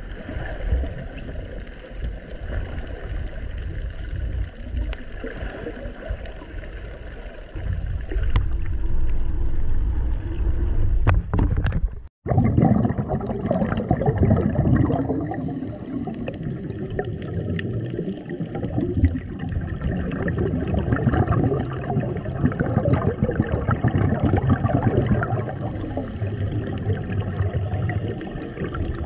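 Muffled underwater water noise picked up by an action camera's microphone. After a sudden break about twelve seconds in, it gives way to a louder, dense bubbling from scuba divers' exhaled air.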